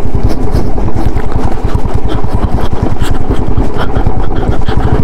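Motorcycle engine running at low speed in a rapid, even chug while the bike rides over a rocky off-road track, with scattered small knocks and rattles.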